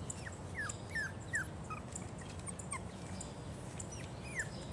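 Five-week-old puggle puppies whimpering: a run of short, high whines, each falling in pitch, several in the first two seconds and one more near the end.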